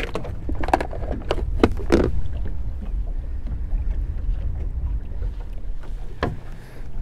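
Steady low rumble of wind and water around an open fishing boat, with a few sharp knocks and clicks in the first two seconds and another about six seconds in as gear is handled on the deck.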